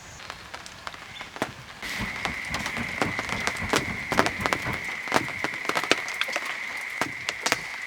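Rain falling, with many sharp drops ticking on a surface. It gets louder about two seconds in, where a steady high-pitched whine also sets in.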